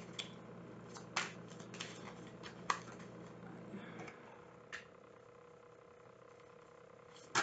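Tarot cards being handled and shuffled by hand: an irregular scatter of soft snaps and flicks, the sharpest about a second and nearly three seconds in.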